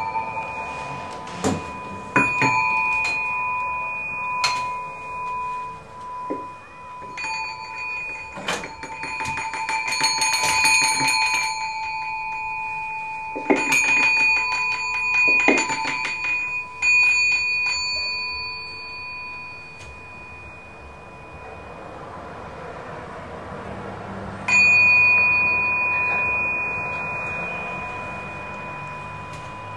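Small metal bells struck one at a time and left ringing, with a quick run of rapid strikes about ten seconds in and a single loud strike near the end that rings out slowly.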